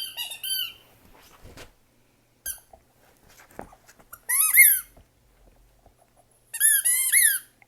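A dog chomping on a squeaky ball, the toy squeaking in quick runs of high, bending squeaks. There is a short cluster at the start and a brief squeak about two and a half seconds in, then two loud runs of rapid squeaks, one around the middle and one near the end.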